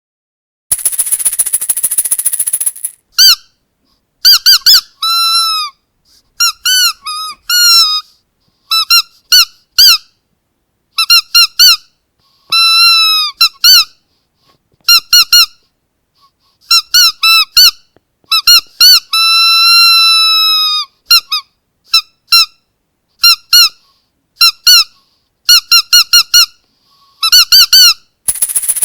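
Squeaky dog toy squeezed over and over: short high squeaks, often in quick pairs or triples, with a few drawn out for a second or two. A burst of hiss comes before the squeaking starts and again near the end.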